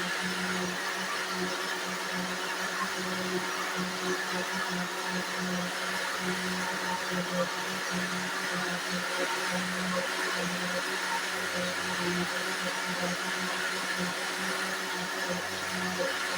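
Small countertop blender running steadily at a constant speed, blending a pancake batter of oats, ripe bananas and water.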